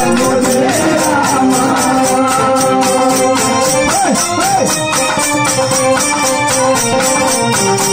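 Devotional bhajan music played live: an electronic keyboard holds steady notes over a fast, even beat from a barrel hand drum and other percussion. A man's voice sings into a microphone, with pitch bends about four seconds in.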